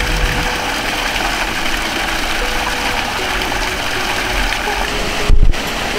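Stream water running and splashing steadily over a small wooden water wheel and out of a log spout into a pond. A brief low thump comes about five and a half seconds in.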